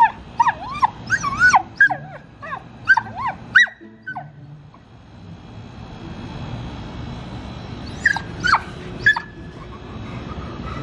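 Dog whimpering and yipping: a quick run of high, wavering whines through the first few seconds, then three or four more about eight seconds in.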